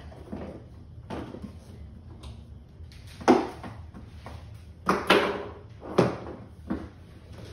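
Sharp knocks and clatters from the hand pump's hose and fitting being handled against an inflatable paddle board on a wooden floor: a loud knock about three seconds in, then a cluster of knocks between five and seven seconds.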